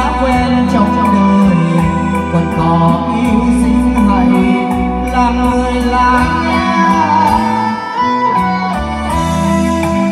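A song played through a live-band stage sound system: a backing track with bass and guitar, with a voice singing into a handheld microphone.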